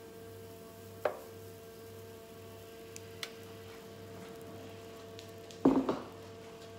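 Faint steady kitchen hum with a few light knocks and a short clatter of kitchenware being handled about six seconds in.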